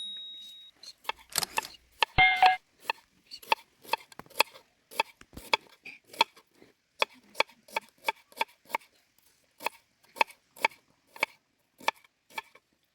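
A knife chopping food on a wooden cutting board: sharp, evenly spaced strokes about two a second. About two seconds in there is a louder ringing knock.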